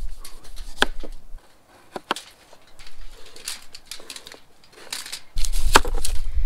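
Knife cutting potatoes: a few sharp knocks of the blade with soft scraping between them. A low rumble sets in near the end.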